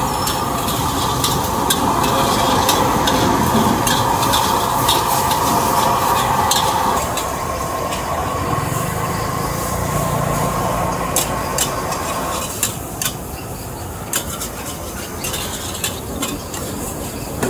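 Stir-frying in a steel wok: a metal ladle repeatedly scrapes and clinks against the pan while the food sizzles. The clinks are frequent at first and thin out near the end.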